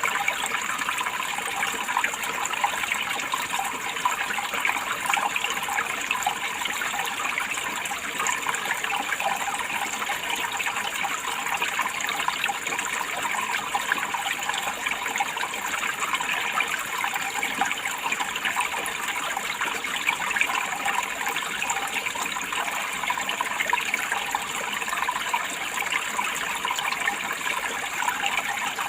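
Water running in a steady, even rush with no breaks or changes.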